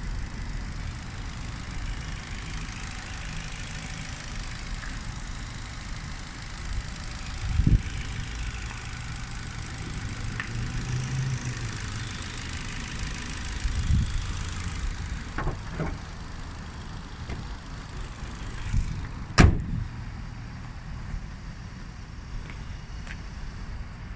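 Ford Mondeo 1.6 petrol four-cylinder engine idling steadily and quietly. A few dull thumps are heard, and about nineteen seconds in a single loud bang as the bonnet is shut.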